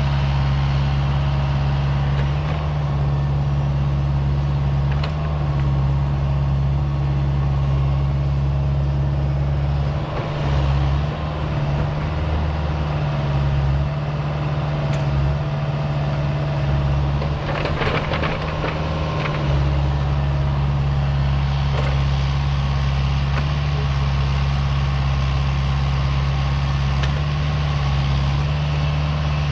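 Heavy diesel equipment engine running steadily at work, with a short burst of clanking and rattling about two-thirds of the way through.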